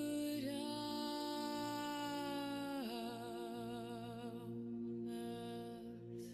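A woman's voice chanting one long held note over a steady drone. About three seconds in, it slides down to a lower note and fades, leaving the drone on its own.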